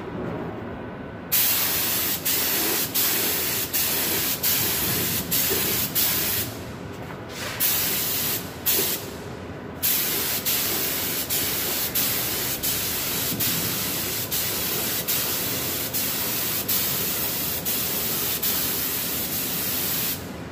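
BULL BLSG01-827 HVLP spray gun with a 1.4 mm nozzle hissing steadily as it sprays a wet second coat of black base coat. The hiss of air and atomised paint starts about a second in and dips briefly at each pass, under a second apart, with a few longer breaks a third of the way through.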